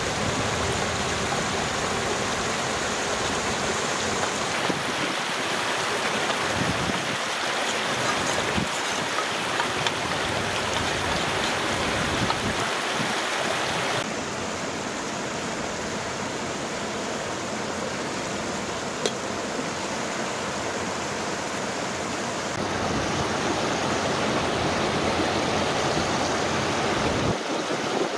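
Steady rush of flowing water, like a mountain stream, with no break. About halfway through it changes tone as water is poured from a kettle into a clay pot.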